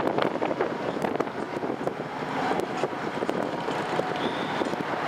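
Metra commuter train rolling past, a steady clatter of wheels on rails with many short irregular clicks.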